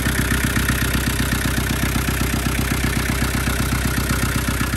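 Land Rover Defender 110's 2.5-litre naturally aspirated 12J four-cylinder diesel engine idling with a steady, even chug, heard close up with the bonnet open.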